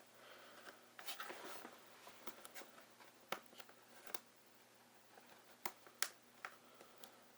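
Faint clicks and soft rustles of a cardboard toy box being handled and opened, with a few sharper taps scattered through.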